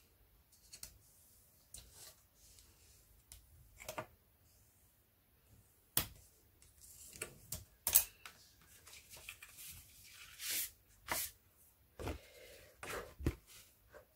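Thick black cardstock being folded and its creases pressed flat with a bone folder: scattered paper rustles and scrapes, with a few sharper clicks and taps.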